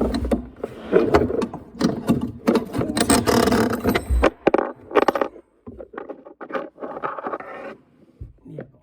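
Clicks, knocks and scraping of metal faucet fittings being handled as an old kitchen faucet is taken apart and pulled out. Busiest in the first half, with a stretch of scraping around the middle, then lighter scattered clicks.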